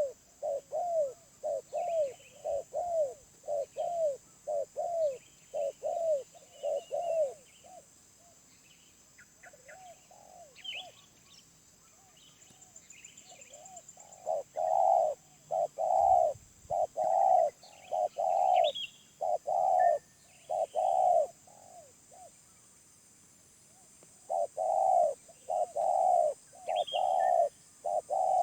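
Spotted doves cooing in runs of short, arched coos, two or three a second. The coos go faint about eight seconds in, come back loud around fourteen seconds, pause near twenty-two seconds and resume. Faint chirps of small birds can be heard between them.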